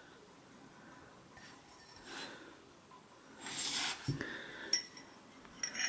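Quiet handling of a ceramic mug on a cloth table runner: soft rubbing, with a short rustle about three and a half seconds in and a few light knocks after it.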